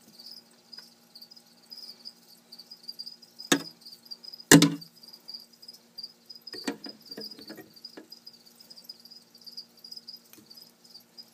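Crickets chirping steadily in a high, pulsing trill, with a few sharp knocks and clicks over it, the loudest two about three and a half and four and a half seconds in, and a cluster of lighter clicks a little later.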